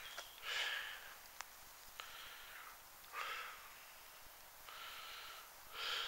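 A man breathing close to the microphone while walking: about six soft breaths, roughly one a second.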